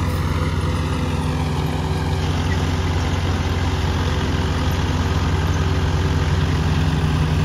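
Swaraj 855 FE tractor's three-cylinder diesel engine running steadily while driving a KS straw reaper, the reaper adding an even noisy wash over the engine's low note. The engine holds its speed without bogging down under the reaper's load.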